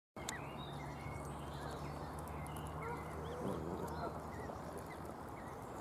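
Canada goose goslings squeaking: many short, high chirps overlapping throughout, over a steady low hum.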